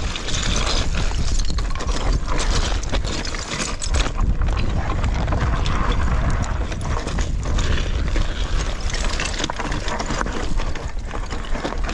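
Mountain bike rolling down loose slate scree: tyres crunching and clattering over the broken shale with many sharp knocks, over a steady low rumble of wind on the microphone.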